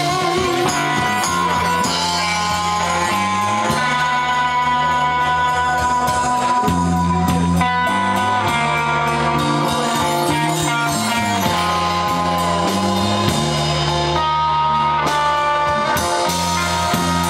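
A live rock band playing: electric guitar, bass guitar and drum kit, with held guitar notes over a steady bass line and cymbals.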